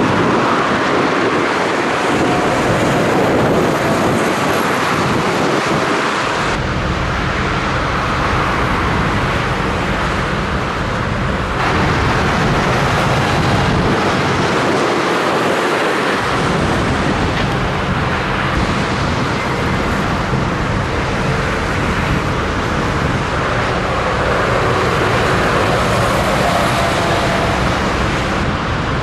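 Motorway traffic: heavy trucks and cars passing at speed, a steady rush of tyre and engine noise. The sound changes abruptly a few times, where clips are cut together.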